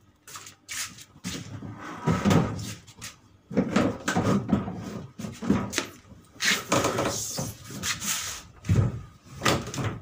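Plastic cabinet of a twin-tub washing machine being pulled off its base and laid on its side: irregular scraping and rattling of the plastic shell, with several heavier knocks and bumps.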